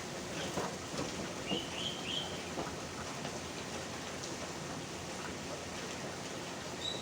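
Steady rain falling, with scattered drops pattering close by. A short bird chirp sounds about a second and a half in.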